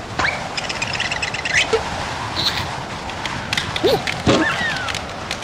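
Cartoon sound effects over a steady hiss: a quick rattling run of clicks early on, then short, squeaky swooping chirps a little under four seconds in, typical of the larva characters' vocal squeaks.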